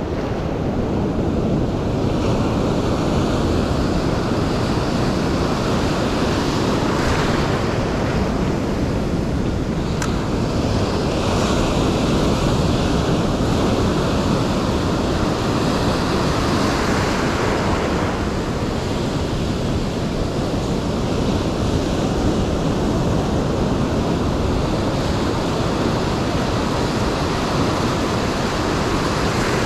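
Surf breaking and washing in over the shallows, a steady rushing that swells a few times as waves come in, with wind buffeting the microphone.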